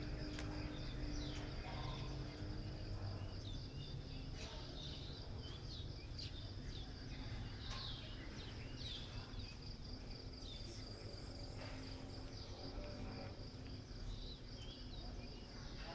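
Morning outdoor ambience: a steady high insect trill with many short bird chirps scattered over it, above a low background rumble.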